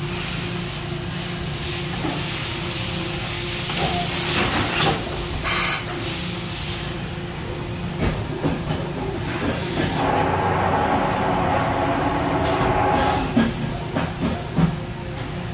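Mazak Integrex 300 IV S multi-axis CNC lathe machining, its spindle running steadily with coolant spraying in the enclosure. Two loud bursts of hissing come about four and five and a half seconds in, and a few sharp knocks follow near the end.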